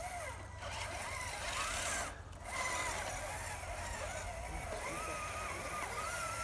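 Electric motors and geared drivetrains of several radio-controlled scale crawler trucks whining, the pitch rising and falling as the throttle is worked on a loose rock climb.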